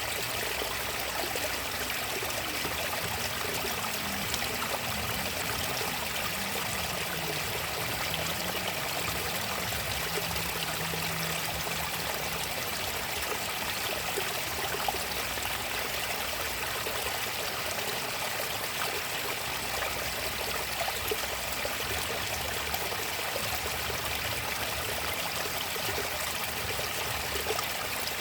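Natural flowing water, a steady even rush without pauses.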